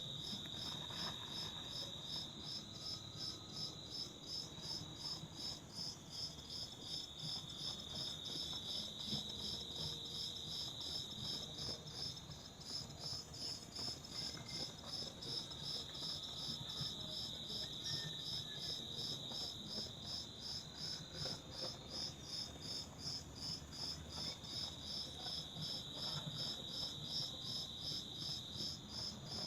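Insects chirping: an evenly repeating high pulsed chirp, several a second, over a steady high trill that drops out and comes back a few times.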